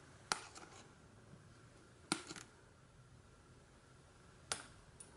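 Small scissors snipping the clear plastic ties that hold a doll to its cardboard packaging backing: three sharp snips about two seconds apart.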